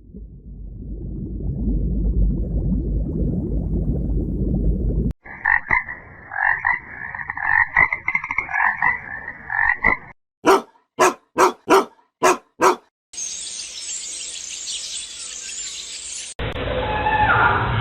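A string of separate short sound clips: a low rumbling noise, then rapid, repeated croaking calls for about five seconds, then six sharp clicks, a high hiss, and a pitched animal call starting near the end.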